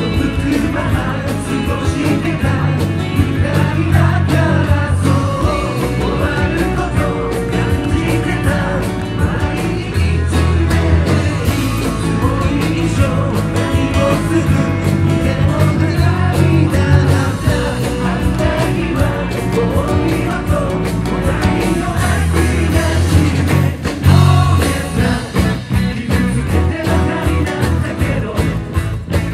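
Live rock song played together by guitars and bass, with singing. Near the end the playing breaks into short, clipped stop-start hits.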